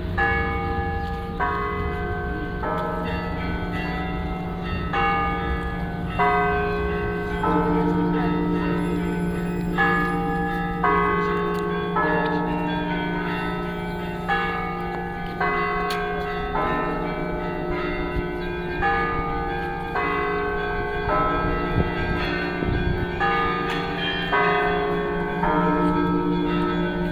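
Russian Orthodox church bell ringing (zvon): several small and mid-sized bells struck in a quick rhythmic pattern over the steady hum of a large low bell.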